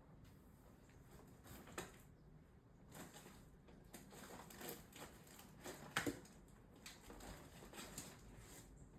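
Near silence with faint, scattered clicks and soft rustling; a pair of sharp clicks about six seconds in is the loudest part.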